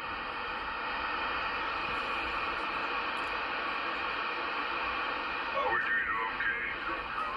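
Galaxy DX959 CB radio on channel 28 (27.285 MHz) receiving a steady static hiss. About six seconds in, a warbling sound sweeps up and down through the speaker.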